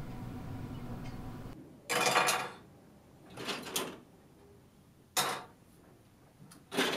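A steady room hum that stops, then plastic toys rattling and knocking against a tabletop four times as a small child handles them, the first the loudest and the third short and sharp.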